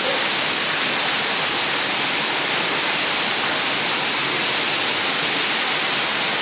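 Rainwater gushing from roof drain spouts and splashing onto the ground and concrete, a steady roar.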